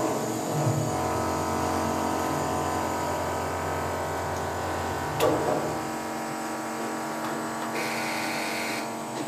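Potain MCT88 tower crane's electric drive running steadily under load, a whining hum with many steady tones, heard from the operator's cab. A sharp click about five seconds in, and a short hiss near the end.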